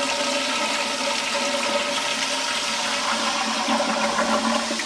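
Small plastic camper toilet flushing: water rushing steadily into the bowl, with a faint steady whine under the rush.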